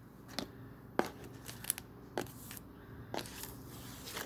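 Small plastic Lego pieces being handled and set down on a table, a scatter of light clicks every half second or so.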